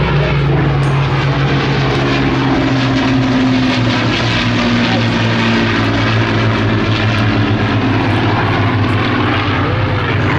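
Piston warbird flying past with its Rolls-Royce Merlin engines droning, several engine tones over a haze of propeller noise, the pitch dropping a little midway.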